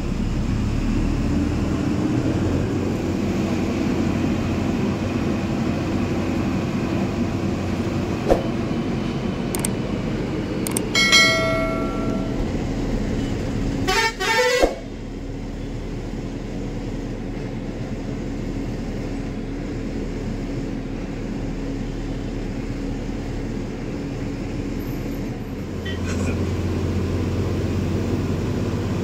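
Ashok Leyland BS VI engine of a coach running steadily under road noise, heard from the driver's cabin. A horn sounds twice near the middle: first a steady note of about a second, then a quick warbling note that falls in pitch.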